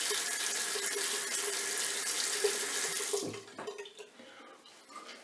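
Bathroom sink tap running steadily while water is splashed onto a face to wet it for shaving, then turned off a little over three seconds in, leaving faint handling sounds.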